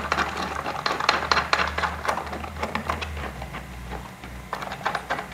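Quick irregular clicks and rattles of bolts and chair parts being handled and fitted, busiest in the first three seconds and thinning out near the end, over a low steady hum.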